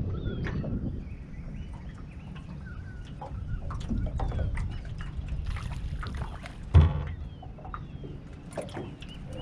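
Small birds chirping and whistling over a steady low outdoor rumble of wind and water, with one loud hollow knock about seven seconds in.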